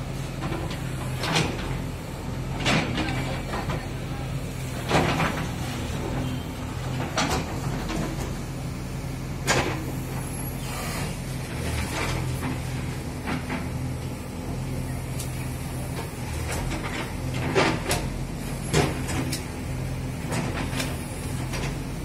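JCB backhoe loader's diesel engine running steadily under load as it digs, with irregular metallic clanks and knocks from the digging arm and bucket every couple of seconds.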